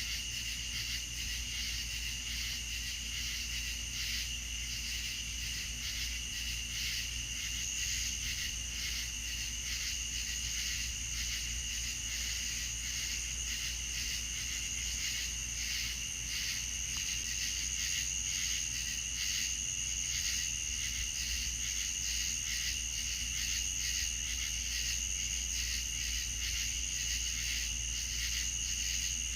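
Night chorus of crickets and other insects: a steady, dense high-pitched trilling at two pitches, the higher one growing louder about halfway through. A steady low hum lies underneath.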